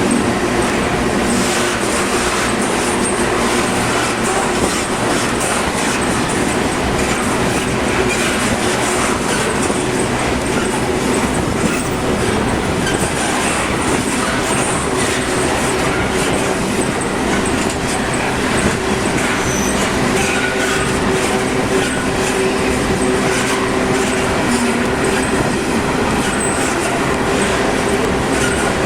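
Freight train rolling steadily past inside a rail tunnel: loud, continuous wheel clatter over the rails with a steady droning hum.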